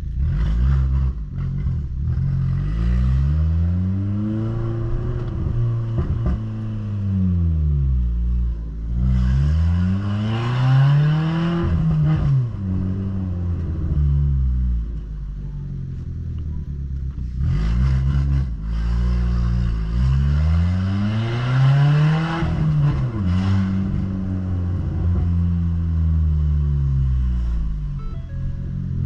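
Ford New Fiesta's engine and exhaust, with a diffuser fitted ahead of the mufflers, rumbling as the car accelerates and eases off. The engine note rises and falls again and again, loudest at the peaks of each pull.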